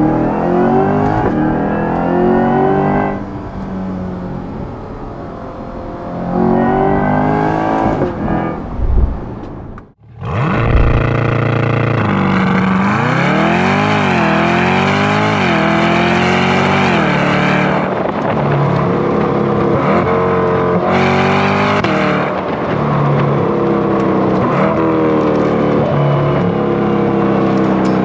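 Chevrolet Corvette C8 E-Ray's 6.2-litre V8 through a titanium sport exhaust with an X-pipe, pulling hard with the pitch climbing and then dropping at several upshifts. It is heard from inside the cabin at first. About ten seconds in the sound cuts out briefly, then returns louder and fuller as picked up by a camera on the rear bumper.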